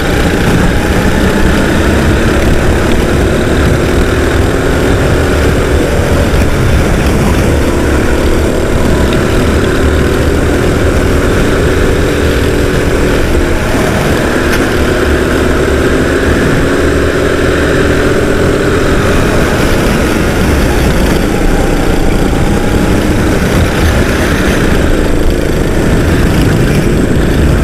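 Go-kart engines at racing speed, heard from on board. The pitch rises and falls over and over as the karts accelerate and slow for the corners.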